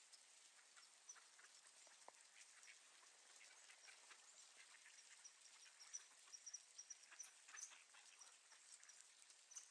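Faint sounds of a flock of ducks feeding on the ground: soft quacks over a scatter of light rain ticks. Short high notes grow busier in the second half.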